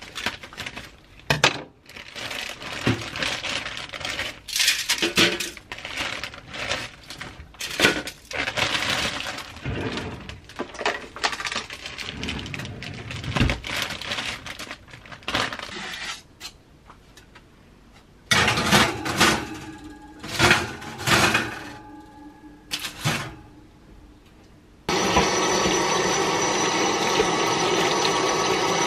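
A plastic bag crinkling and rustling as breaded patties are pulled out of it and set on a foil-covered tray, with a short lull partway through. About 25 s in, a kitchen tap starts running steadily as a potato is rinsed under it.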